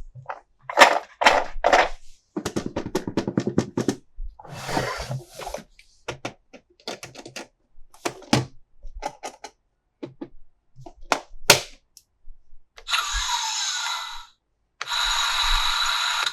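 Hard plastic toy parts and packaging clicking, knocking and rattling in quick, irregular taps as the toys are handled, with a brief crinkle about five seconds in. Near the end, tinny electronic music starts, stops briefly, and starts again.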